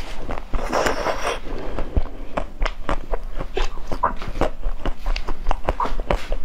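Close-miked biting and chewing of a frozen ice-cream bar: irregular crunching, mouth clicks and smacks, with a longer crunch about a second in.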